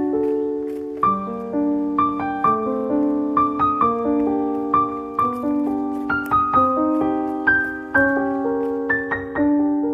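Background music: a solo piano playing gentle arpeggiated chords, each note struck and left to ring and fade.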